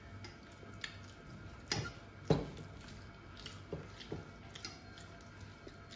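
Eating noises at a meal: a handful of soft smacks and clicks, the loudest a little over two seconds in.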